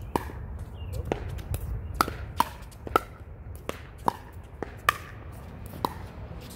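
A pickleball rally: about ten sharp, hollow pocks of paddles striking the plastic ball and the ball bouncing on the hard court, a half to one second apart.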